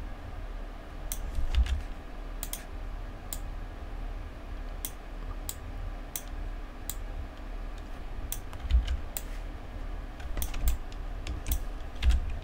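Computer keyboard keystrokes and mouse clicks at an irregular pace, with a few duller thumps, over a low steady hum.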